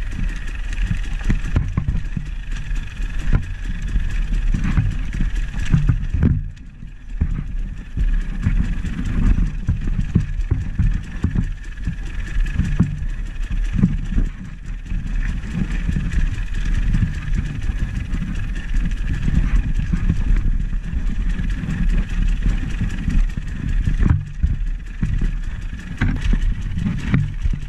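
A vehicle's engine running while driving, a continuous low rumble broken by frequent knocks and jolts. It eases off briefly about six seconds in.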